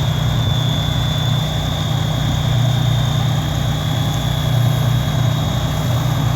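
Diesel fire engines idling together, a Detroit Diesel and a Cummins, in a steady low rumble that holds even. A thin steady high-pitched tone runs over it throughout.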